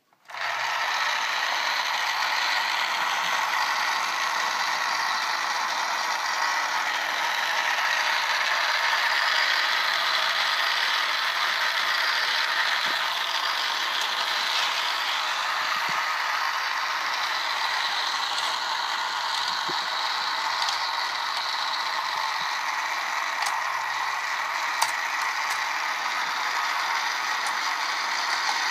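A battery-operated toy motorcycle race track switched on, its small electric motor and plastic gearing running with a steady whirring, ratcheting clatter.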